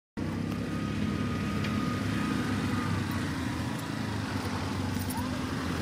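A steady low engine drone, with a faint thin high tone over it during the first few seconds.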